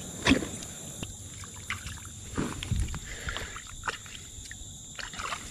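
A sharp knock about a third of a second in, then scattered light knocks and rustling from hands on the gunwale of a bass boat.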